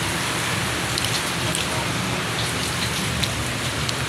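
Steady rain falling, with a few scattered sharp drop ticks.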